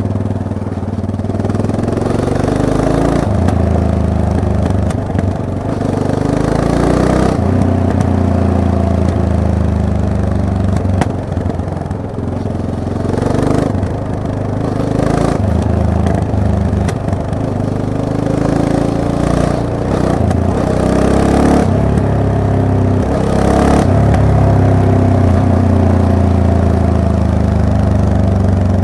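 Yamaha MT-03 motorcycle engine being ridden, its note repeatedly rising as the revs climb and then dropping back.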